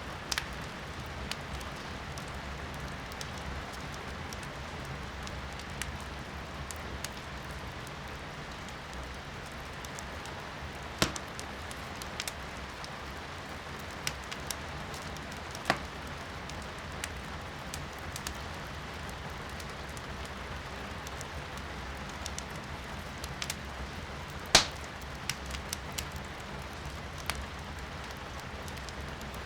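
Wood burning in a fireplace, crackling with scattered sharp pops, the loudest a little past the three-quarter mark, over steady rain heard from inside a room.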